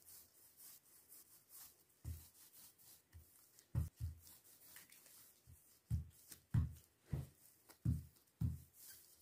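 Wooden rolling pin rolling out dough on a countertop: a series of dull, low thumps at irregular spacing, coming more often in the second half, as the pin is pressed and rolled over the dough.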